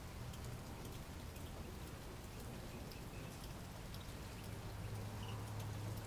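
Rain falling steadily, with scattered single drops ticking, over a low steady hum that grows a little louder about five seconds in.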